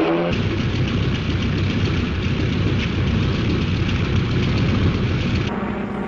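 Airplane engine and propeller running in flight: a loud, steady, rough drone with a fast flutter, on an old film soundtrack. About five and a half seconds in it cuts to a quieter background with a low steady hum.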